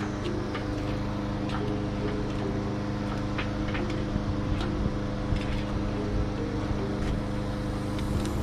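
Background music with sustained low notes that shift in pitch, with scattered light clicks over it.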